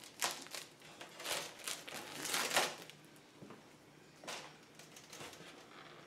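Clear plastic protective film rustling and crinkling as it is handled and pulled off a hard plastic RC truck body, in several short bursts, the loudest about two and a half seconds in.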